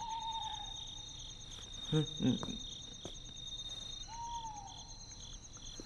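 Night ambience of crickets chirping in a steady pulsing trill, with a night bird giving a single falling hoot at the start and again about four seconds in. About two seconds in, a man's voice makes two short sounds, the loudest moments.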